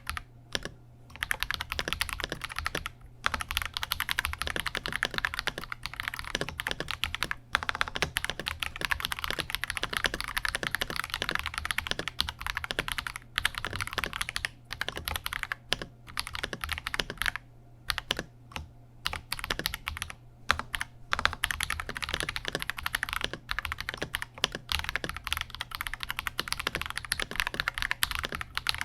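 Fast continuous typing on a KBD67 Lite R3 mechanical keyboard with unlubed Akko CS Radiant Red linear switches: a dense run of higher-pitched, clacky keystrokes broken by a few brief pauses.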